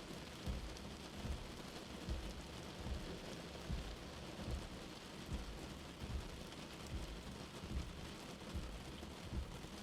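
Steady rain falling, with irregular low thuds of heavy drops striking a surface close by, about one every second. Under it runs a faint steady high insect chorus.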